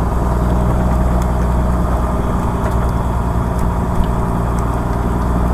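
A fishing boat's engine running steadily at an even speed, giving a constant low hum.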